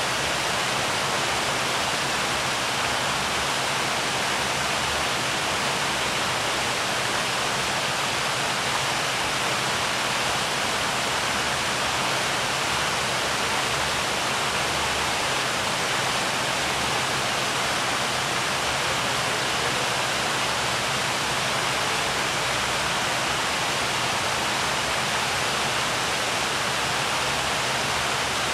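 Buckingham Fountain's water jets spraying and falling into its basins: a steady, even rush of splashing water.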